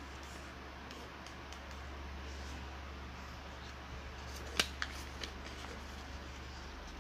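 A sheet of origami paper being handled and folded by hand: faint rustling with a few crisp paper clicks about two-thirds of the way through, the first the loudest, over a steady low hum.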